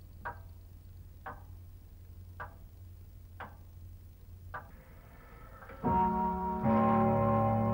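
A clock ticking slowly, about one tick a second, each tick with a short metallic ring. About six seconds in, music with long sustained chords comes in and is much louder than the ticking.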